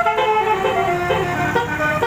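Basuri telolet horn, a multi-tone electric vehicle horn, playing a tune: a run of horn notes stepping up and down in pitch, each held about a quarter to half a second.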